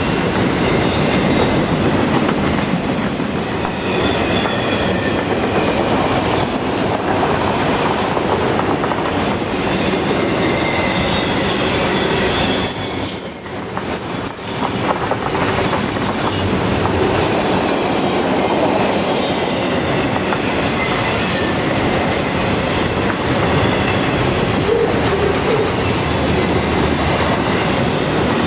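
Freight cars of a long CN freight train rolling past, a steady rumble and rattle of steel wheels on rail with faint high-pitched wheel squeal. The noise dips briefly a little under halfway through, then comes back as before.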